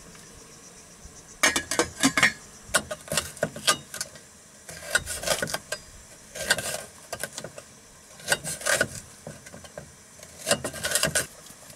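Knife slicing a green pepper on an aluminium tray: irregular clusters of sharp taps and clicks of the blade striking the metal, every second or so.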